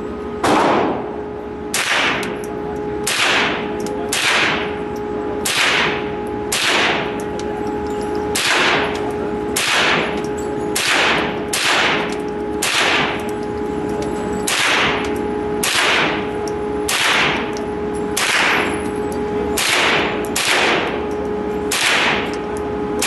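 Handgun or rifle shots fired one at a time in a steady string, about twenty shots at roughly one a second, each followed by a short ringing tail. A steady hum runs underneath.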